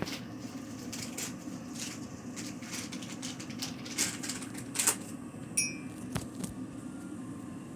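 Kitchen clatter: scattered light clicks and knocks of dishes and utensils being handled, with a brief ringing clink about five and a half seconds in, over a steady low hum.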